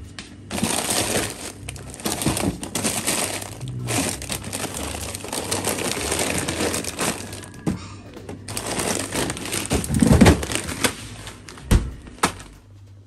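Plastic bags of frozen vegetables crinkling and rustling as they are handled and rummaged through, in two long stretches with a short pause about eight seconds in. Two sharp knocks follow near the end.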